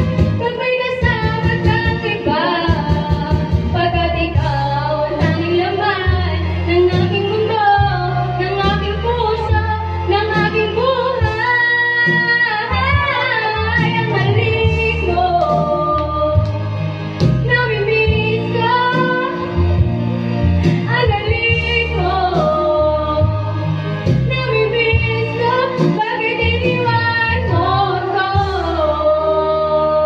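A woman singing karaoke into a corded microphone over a backing track with a steady bass line.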